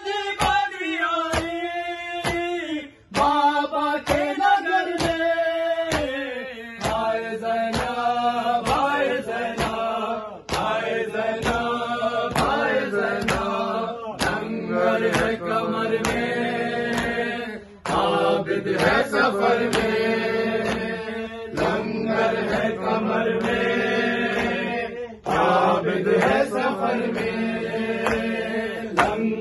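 A group of men chanting a noha (Shia lament) led by a reciter. Under it run steady, rhythmic hand-slaps of matam, the chest-beating that keeps the beat of the lament.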